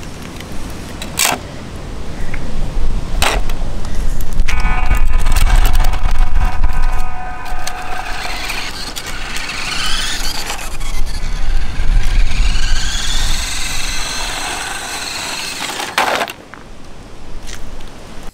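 Small stones dropped into the plastic load bed of a WPL D12 1/10-scale RC kei truck give a couple of sharp clacks. The truck's small brushed 260 motor and plastic gearbox then whine as it drives off loaded, the pitch rising as it speeds up, over a steady low rumble.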